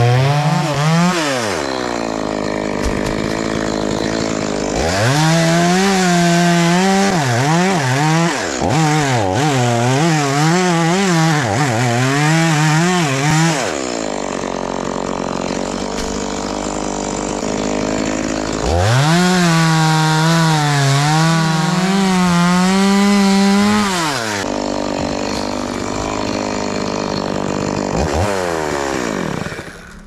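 Stihl two-stroke chainsaw sawing through a coconut palm trunk. It revs high under load in three spells, with the pitch wavering through the cuts, and drops to idle between them. The engine cuts off near the end.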